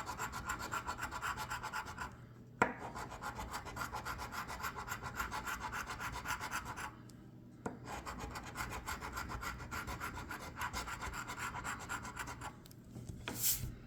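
Scratch-off lottery ticket (a $5 Black Pearls) being scratched off in rapid, even back-and-forth strokes, with two short pauses and a sharp click about two and a half seconds in.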